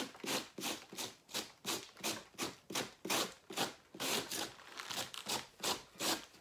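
Handheld cabbage shredder raking across the cut face of a fresh cabbage half, slicing it into thin shreds in quick, even strokes, about three a second.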